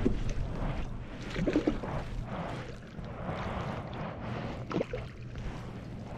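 Water splashing and gurgling against the side of a canoe as a hooked fish thrashes at the surface, with sharper splashes about a second and a half in and again near five seconds.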